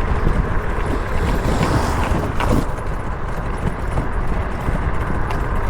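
Wind rushing and buffeting against the microphone while riding downhill at speed: a steady rush with a deep rumble.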